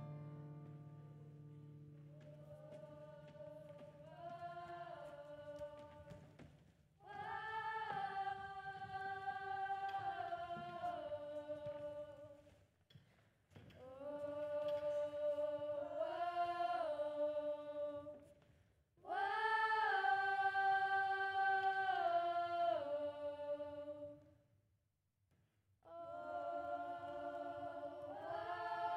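Student choir singing unaccompanied in harmony: a soft opening phrase, then four long held phrases, each a few seconds, with short pauses between them.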